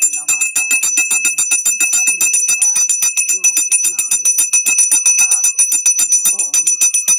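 Brass puja hand bell (ghanti) rung rapidly and without pause during arati, about ten clapper strikes a second, with a bright, steady high-pitched ring.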